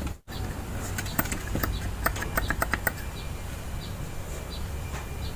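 A scatter of light, sharp metallic clicks and taps, mostly in the first half, as small steel and copper parts of a hydraulic valve are handled on a workbench, over a low steady background hum.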